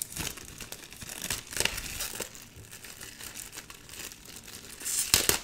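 Clear plastic wrap crinkling as hands peel it off a hardcover journal, in irregular crackles, with a louder burst of crinkling near the end.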